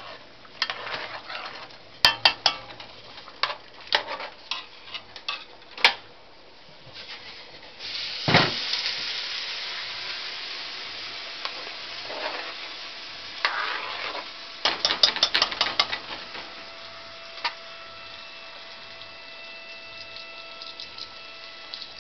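A metal spoon stirring in a deep cooking pot, knocking and scraping against the sides in a string of sharp clinks. About a third of the way in there is a heavier knock and a hiss that rises and fades over a few seconds, more clinks follow, and in the last few seconds a steady electric hum comes in.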